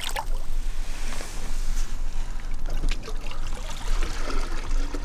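Lake water splashing and trickling as a common carp is released from a wet fabric sling and swims off, with a sharp splash near the start and a few smaller splashes after.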